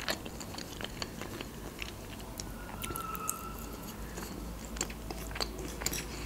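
A person chewing a slice of avocado close to the microphone: soft, wet mouth clicks scattered through the chewing.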